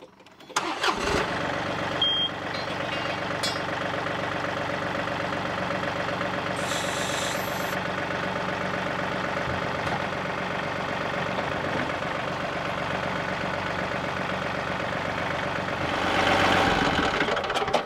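John Deere 2038R compact tractor's three-cylinder diesel engine running steadily while the front loader is worked under load from the joystick, with a short hiss about seven seconds in and the engine a little louder near the end.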